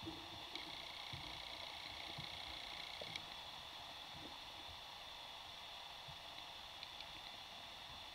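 Faint underwater ambience: a steady hiss with scattered small clicks and knocks, and a thin steady whine for about two and a half seconds near the start.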